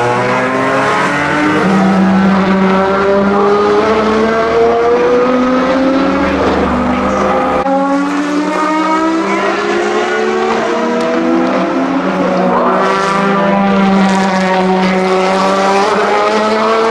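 Aston Martin DBR9 GT1's 6.0-litre V12 racing engine accelerating past, its note climbing steadily in pitch. About eight seconds in the sound changes abruptly to a second DBR9, whose note climbs again with a brief dip partway through.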